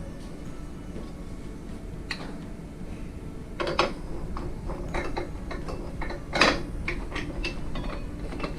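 Metal parts of a meat slicer being handled and fitted: irregular clicks and clanks, the loudest a sharp knock about six seconds in.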